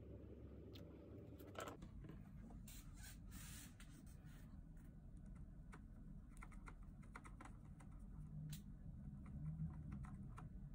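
Faint small clicks and taps of water brush pen tips and caps against hard watercolour pans and their metal tin, with a sharper click about one and a half seconds in and a short scratchy rustle around three seconds in.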